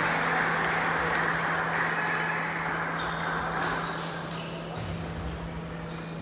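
Table tennis balls clicking sharply against tables and bats across a sports hall, over a broad rush of hall noise that fades over the first few seconds and a steady low hum.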